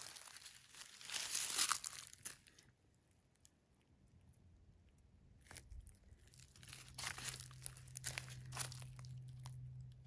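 Footsteps crunching and rustling through dry leaf litter, in two spells: over the first two and a half seconds, then again from about five and a half seconds until near the end.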